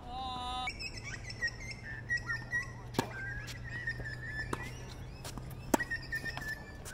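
Birds singing in high whistled phrases, with the sharp pops of a tennis ball struck by racquets during a rally: once about three seconds in and again, louder, near the end.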